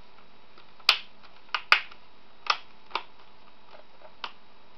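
Plastic screen bezel of a Lenovo G575 laptop being pressed home by hand along its top edge: about six sharp clicks at irregular intervals as its clips snap into place.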